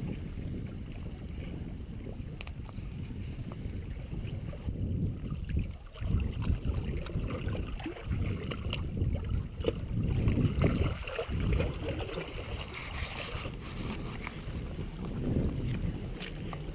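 Wind buffeting an outdoor camera microphone: a low, uneven rumble that gusts louder a few times, with a few small knocks.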